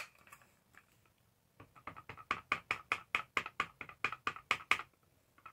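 An ink pad being tapped repeatedly onto a rubber stamp to ink it: a quick run of light taps, about five a second, for about three seconds, after a single sharp click at the very start.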